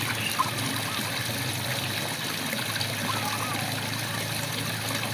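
Steady rain falling, with a frog's short chirping call about half a second in and again about three seconds in.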